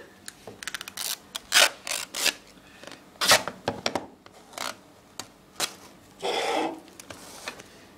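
iPhone 5c's hard plastic retail box being opened and handled on a desk: its lid and packaging scraping and rubbing, with an irregular string of sharp clicks and scuffs and a longer scrape about six seconds in.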